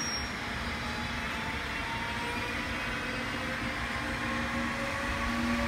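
Seoul Metro Line 1 electric train pulling away from the station, its VVVF inverter traction motors whining in several tones that rise slowly as it gathers speed, over a steady rumble of wheels on rail.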